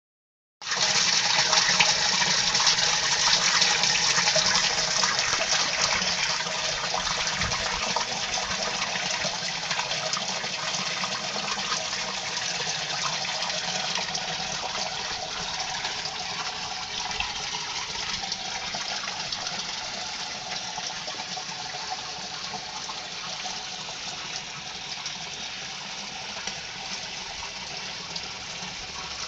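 Water pouring from a white PVC drain pipe out of an IBC aquaponics grow bed into the fish tank below: a steady splashing gush. It slowly grows quieter.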